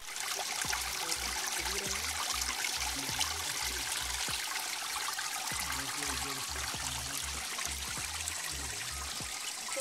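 Small stream of water running and trickling over rocks into a shallow pool, a steady rushing splash.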